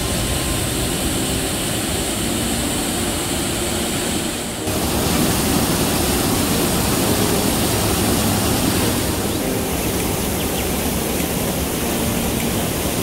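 Waterfall: water rushing and falling in a loud, steady wash of noise, which shifts suddenly a little over four seconds in and then continues slightly louder.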